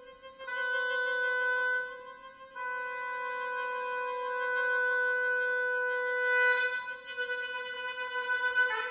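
Oboe holding long sustained notes on one pitch, with brief breaks between entries. Near the end the tone begins to waver and pulse.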